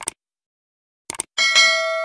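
Subscribe-button animation sound effects: a quick double click at the start and another about a second in, then a bright notification bell chime that rings on and fades.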